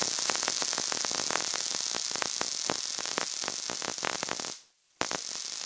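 Tesla coil spark gap firing: a loud, steady rasping crackle of rapid snapping sparks over a hiss. It cuts out for about half a second near the end, then starts again.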